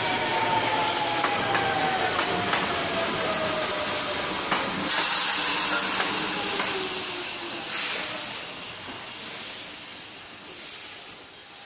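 Hankyu electric commuter train braking into a station: a whine slides steadily down in pitch as it slows, with wheel clicks over the rails. About five seconds in, a loud hiss of air starts, followed by shorter hisses as the train comes to a stop.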